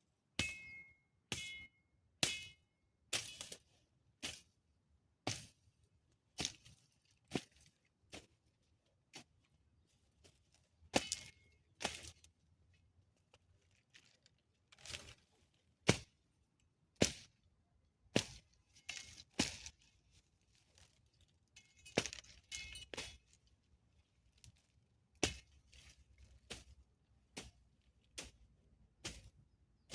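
A hand-held garden cutting tool cutting through vegetation: a run of sharp snips or chops, about one a second with some quick pairs. Several cuts carry a brief metallic ring.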